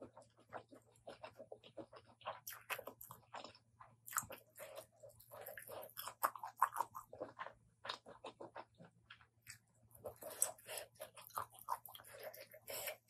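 Close-up chewing of a mouthful of spicy apple snail salad: a dense, irregular run of short clicks and crunches.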